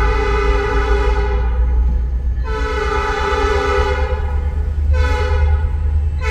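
Locomotive air horn sounding the grade-crossing signal in several notes at once. A long blast ends about a second and a half in, a second long blast runs from about two and a half to nearly five seconds, a short blast follows, and the final long blast begins at the very end.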